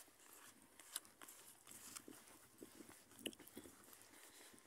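Near silence, with faint, irregular clicks and crunches of a horse's hooves walking on a dirt track.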